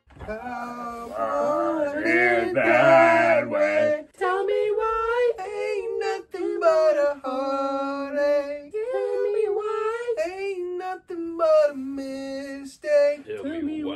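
Young men singing a wordless tune together, held notes stepping up and down in pitch, several voices at once early on.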